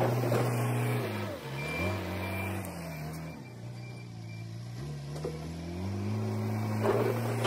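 Backhoe engine running, its pitch dropping and rising a few times as it is throttled down and back up.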